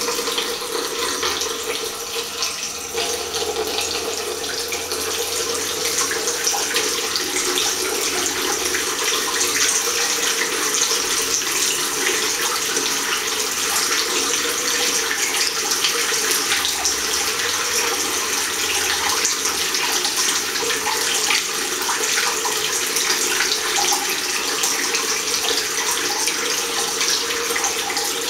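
Water running steadily from a chrome two-handle mixer tap into a ceramic washbasin, splashing near the open drain as it runs away.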